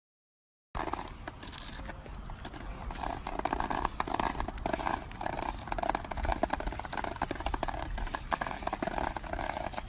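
Plastic leash handle scraping and clattering along asphalt in an uneven rhythm, about two knocks a second, as a dog walks holding the leash in its mouth.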